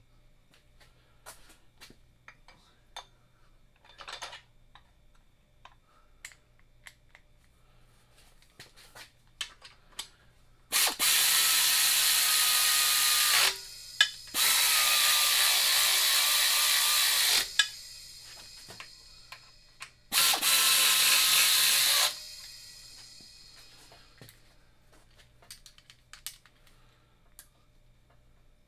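A power tool running motor-mount bolts into an engine block in three bursts of two to three seconds each, its pitch sagging a little as each bolt draws down. Light metal clicks of bolts and parts being handled come before and after.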